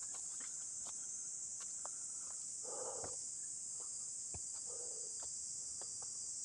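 Steady high-pitched chorus of insects in the trees. A short lower call sounds twice, about three and five seconds in, and light crackles of footsteps on dry leaf litter come and go.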